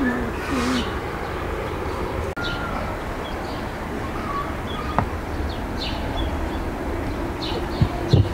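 Small birds chirping repeatedly over a steady low rumble of outdoor background noise. There is a sharp click about five seconds in, and a couple of dull knocks near the end as the clay pot is set down on the table.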